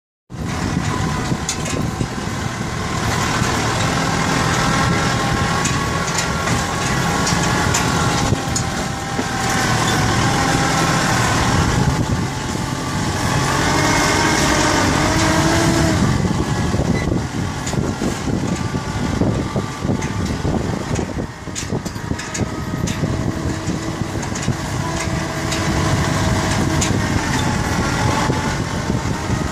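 Kubota tractor's diesel engine running as the tractor drives along, its pitch rising and falling with the throttle, with frequent rattling knocks from travelling over the rough dirt track.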